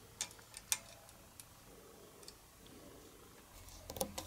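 Small sharp clicks of a wire, fingertips and tools against a plastic terminal block and its metal screws as a wire is pushed under a terminal screw. There are a few clicks in the first second, then a quick cluster near the end as a flat-blade screwdriver is set on the screw head.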